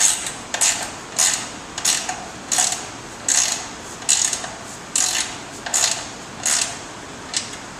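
A socket ratchet wrench clicking in short, evenly spaced strokes, about eleven of them, roughly one every 0.7 seconds, as a nut is run down onto a bolt on a steel mount.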